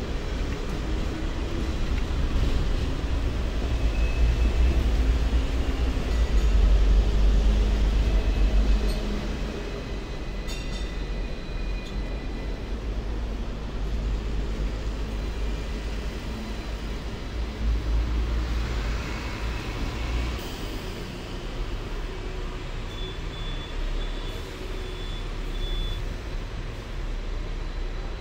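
Hong Kong double-decker electric tram running along its street track, heard from on board: a steady low rumble of wheels on rail and running gear, loudest a few seconds in and easing after about nine seconds. A short run of high beeps near the end.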